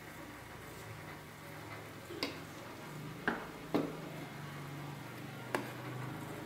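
A metal ladle and spoon knocking against enamel batter pots and a metal cake tin: four sharp clinks over a steady low hum.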